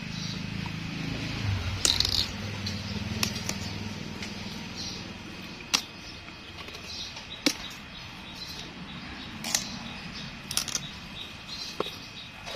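Thin bamboo side shoots snapping as they are broken off by hand: several sharp pops, a second or two apart. A low steady hum runs under the first few seconds.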